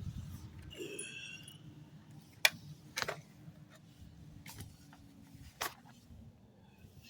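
A few sharp clicks and knocks, the loudest about two and a half seconds in, over a low rumble.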